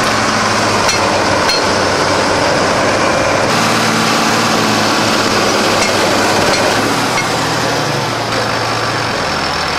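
John Deere farm tractor's diesel engine running steadily, with a few light clicks over it; the engine gets a little quieter about eight seconds in.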